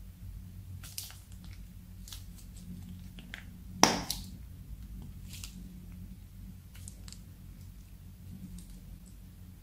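Clear slime with foam beads and sequins being squeezed from a plastic piping bag into a glass bowl and pressed with fingers: scattered small wet clicks and pops, with one louder sharp pop about four seconds in, over a low steady hum.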